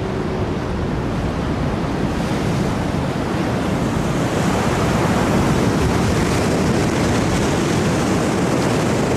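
Rough, stormy sea: waves surging and breaking with wind, a continuous rushing noise that builds in loudness over the first few seconds and then holds steady.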